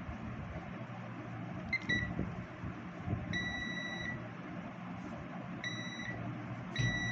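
Multimeter continuity buzzer beeping in a steady high tone each time the test probes touch two points joined by a circuit-board track. There are several beeps: short chirps, one lasting nearly a second, and another short one near the end. Each beep signals continuity along the traced path.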